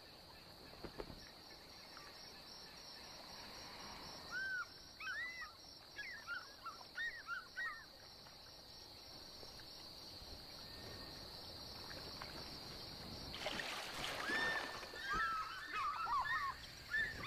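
African fish eagles calling: two bursts of short, arched yelping notes, a few seconds in and again near the end, over a steady high-pitched insect drone. A brief rushing noise comes just before the second burst of calls.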